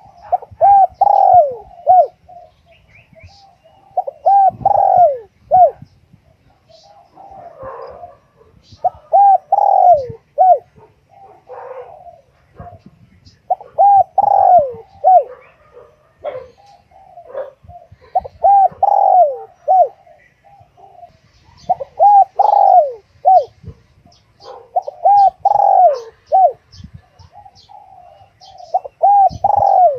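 Spotted dove cooing, a phrase of several short coos repeated about every four seconds. Faint chirps of smaller birds are heard between the phrases.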